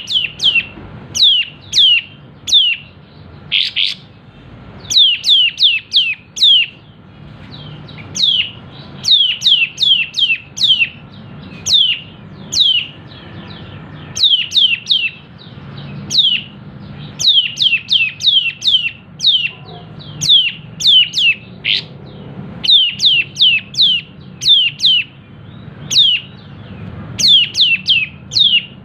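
Malaysian pied fantail (kapas tembak) singing: a long run of sharp, falling whistled notes in quick clusters of two to five, with a brief harsh chatter about four seconds in.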